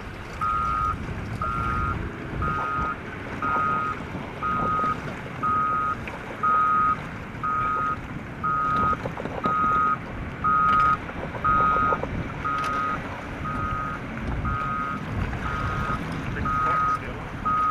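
A truck's reversing alarm beeping steadily, about once a second, while the truck backs up, with low rumbling underneath.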